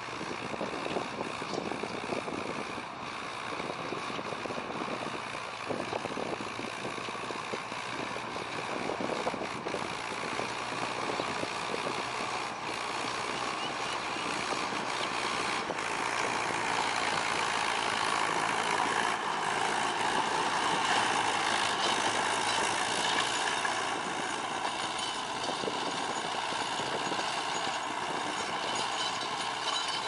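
Tractor engine running steadily, getting louder about halfway through as it comes nearer.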